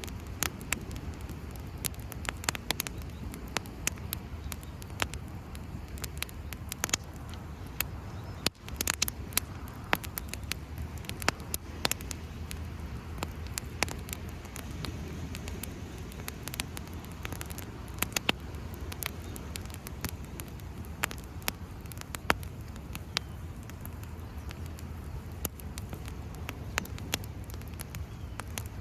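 Wood campfire crackling, with many irregular sharp pops and snaps over a steady low rush.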